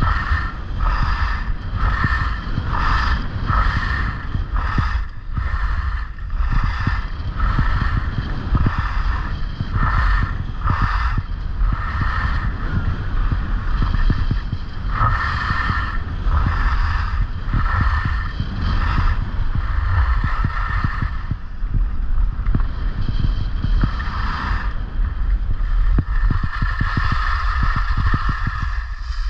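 Skis carving quick turns down groomed corduroy snow, the edges scraping in a rhythm of about two turns a second, then in slower, longer sweeps, with a long skid near the end. A heavy wind rumble on the microphone runs under it.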